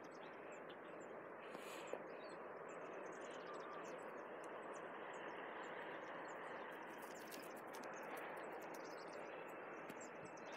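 Faint outdoor ambience: a steady soft hiss with small, high bird chirps scattered through it.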